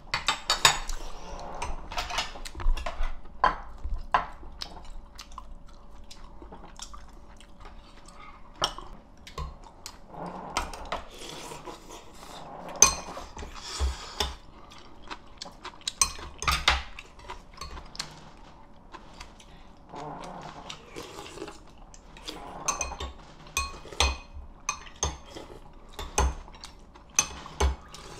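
A metal spoon and chopsticks clinking and scraping against a ceramic soup bowl while eating, in irregular sharp clinks every second or so.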